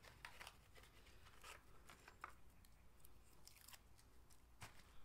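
Near silence with faint, scattered clicks and rustles of a small plastic part being unwrapped and handled.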